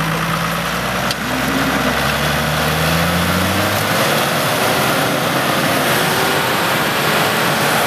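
Toyota Land Cruiser 80's engine revving hard under load as it tows a stuck vehicle out of deep mud on a strap, its pitch climbing over the first few seconds. Under it runs a steady rush of tyres spinning and flinging mud.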